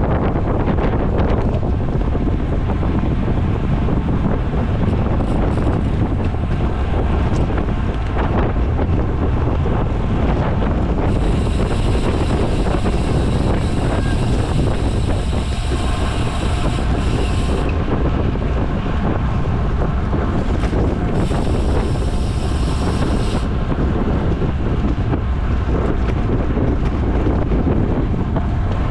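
Wind buffeting the microphone of a camera on a racing bicycle at speed, a steady rushing noise. Twice, about a third of the way in and again past two thirds, a high steady whir rises above it for a few seconds.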